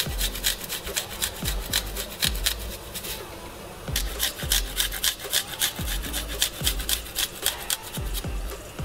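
Garlic cloves rubbed back and forth on a small metal hand grater, making quick rasping strokes several times a second. There is a short pause about three seconds in, then the grating starts again.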